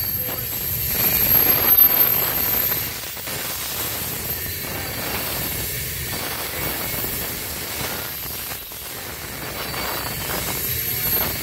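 Loaded coal hopper cars rolling past at speed: a steady rumble and clatter of steel wheels on the rails.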